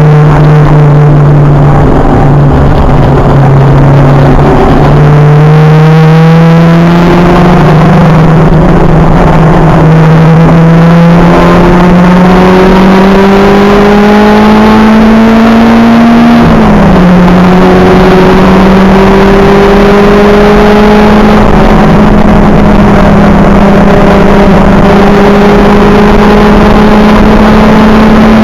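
Acura Integra race car engine heard from on board, pulling hard under load with its pitch climbing slowly. It drops sharply on an upshift about two-thirds of the way through, then climbs again.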